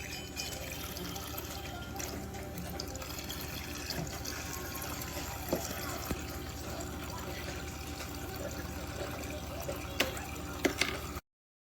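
Water running steadily from a toy sink's battery-powered faucet into its plastic basin, with a few light clicks near the end.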